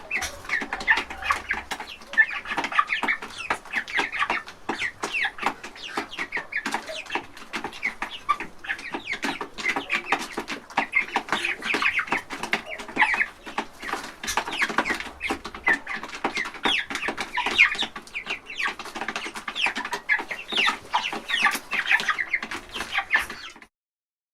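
A crowded flock of young chickens feeding at a trough: many overlapping peeps and clucks, with a constant patter of sharp clicks from beaks pecking the trough. The sound cuts off abruptly near the end.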